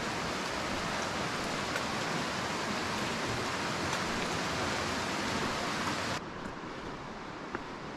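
Steady rush of flowing water, like a mountain river or stream. About six seconds in it cuts abruptly to a quieter, duller rush with a few faint ticks.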